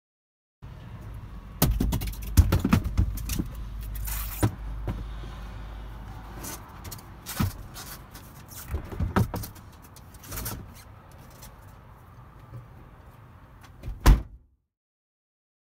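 Racing tyres being loaded into the back of an SUV: dull thumps and knocks of the rubber tyres against each other and the cargo floor, with handling noise. A sharp, loud thump near the end.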